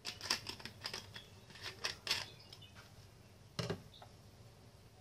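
Metal spoon clinking lightly against a glass bowl: a quick run of small taps in the first two seconds, then one louder knock about three and a half seconds in.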